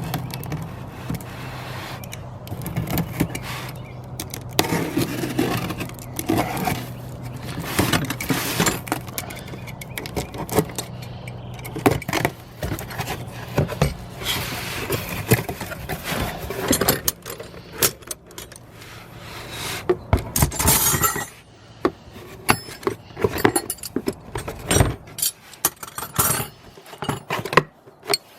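Metal wrenches clinking and jangling against each other in many irregular clanks as they are handled and unpacked, over a steady low hum that stops about two-thirds of the way through.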